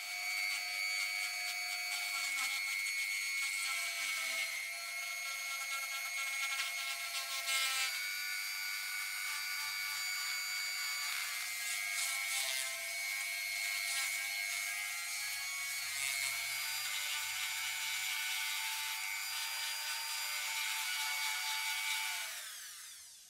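High-speed handheld rotary tool with a sanding drum running against the brass of a cartridge-case lighter: a steady high whine that dips in pitch now and then as it bears on the metal, then spins down and stops near the end.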